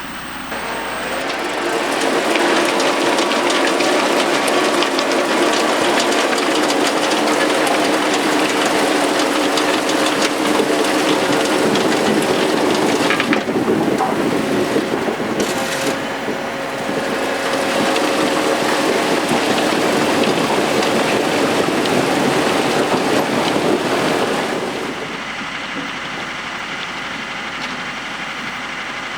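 John Deere 6140R tractor pulling a Dewulf potato harvester at work: the engine runs steadily under load beneath a dense rushing noise from the machine. It grows loud about a second in, dips briefly in the middle, and falls back to a quieter steady level near the end as the machine moves away.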